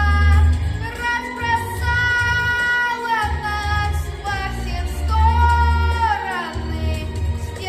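A boy singing a song over an instrumental backing track with a pulsing bass line, holding long notes; one note slides down near the end.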